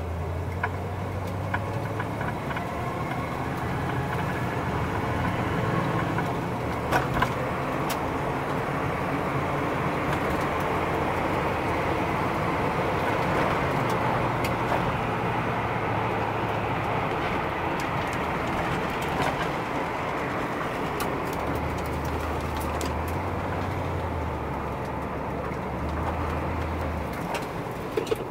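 1981 Chevrolet Camaro Z28's V8 engine heard from inside the cabin while driving, with road noise; the engine note rises and falls a few times with the throttle. A few sharp clicks come about seven seconds in and near the end.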